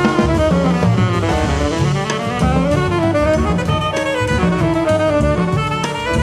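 Jazz quartet playing: a tenor saxophone plays a fast-moving melodic line over upright bass and drum kit.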